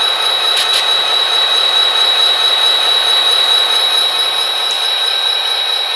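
HO-scale SD40T-2 model's sound decoder playing its diesel-locomotive engine sound loudly through the model's small speaker, with a steady high whine over a hiss. A lower hum drops away about three-quarters of the way in.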